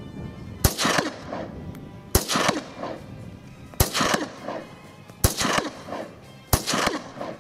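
Benelli Nova pump-action shotgun fired five times, about a second and a half apart. Each shot is followed by a short falling chirp, the echo off the corrugated steel sheet-pile wall downrange.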